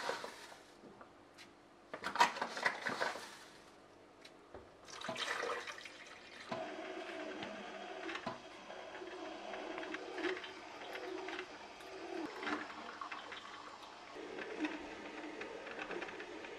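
Braun drip coffee maker brewing: water gurgling and hissing through the machine and coffee dripping into the glass carafe. Two short bursts of rustling and clatter in the first few seconds come before the brewing starts.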